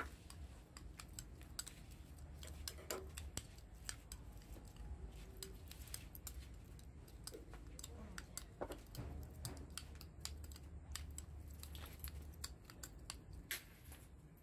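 Metal spoon stirring wet chopped green chili sauce in a ceramic bowl, with quiet, irregular clinks and scrapes against the bowl.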